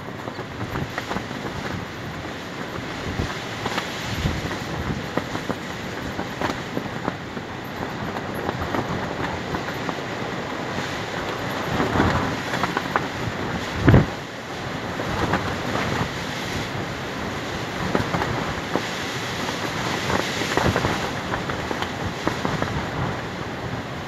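Strong wind buffeting the microphone, with a large fabric sheet flapping and snapping in the gusts. One loud buffet about halfway through.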